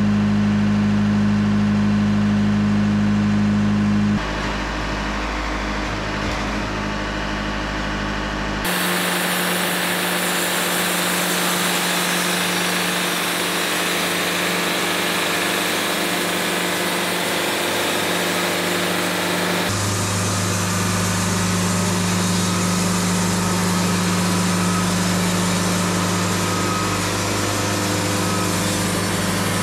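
Wood-Mizer LT70 Super Wide portable sawmill running: a steady engine hum whose tone changes abruptly about four seconds in, again near nine seconds and again about twenty seconds in. In the middle stretch a loud hiss joins the hum.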